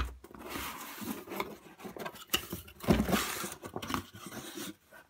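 Cardboard mailer box being opened by hand: a knock as the hands take hold, then the flaps scraping and rustling as the lid is pulled open, loudest about three seconds in.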